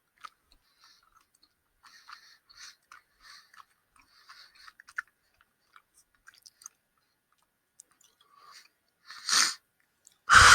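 Person chewing gummy candy close to a headset microphone: soft, wet mouth sounds and small clicks, with two short, loud bursts of noise near the end.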